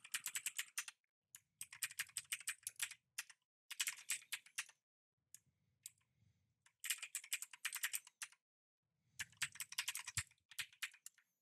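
Typing on a computer keyboard: five quick runs of keystrokes with short pauses between them.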